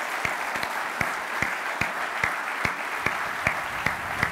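Large audience applauding steadily, with sharp single claps from people close by standing out a few times a second.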